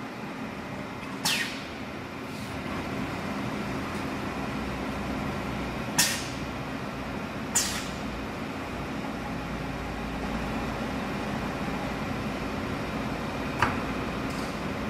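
Automatic-tool-change CNC router running with a steady hum, broken four times by short, sharp hisses of compressed air from the spindle's pneumatic tool release during tool changes.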